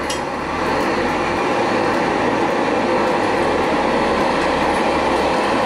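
Jetboil MightyMo canister gas stove burning at full flame under a pot of water, a steady rushing gas noise that grows louder over about the first second as the valve is turned up, then holds level.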